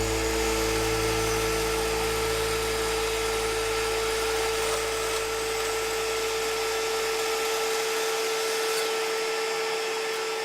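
Power tool running steadily: a constant whine over a rushing hiss.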